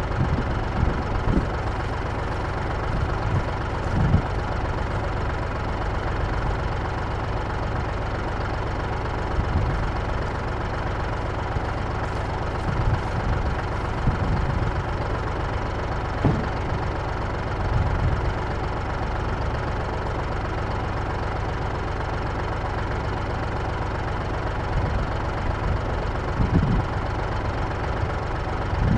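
Three-cylinder tractor diesel idling steadily, with a few short, dull thumps scattered through it.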